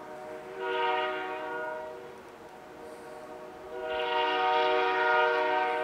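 Air horn of an approaching CN GP38-2 diesel locomotive sounding a steady chord, with two louder blasts: a short one about a second in and a longer one from about four seconds in.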